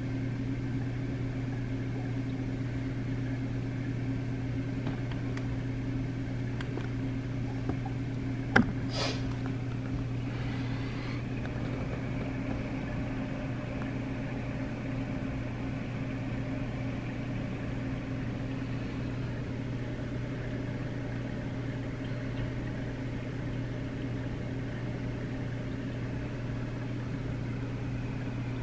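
Steady electrical hum of running aquarium pumps and powerheads, with one sharp click partway through.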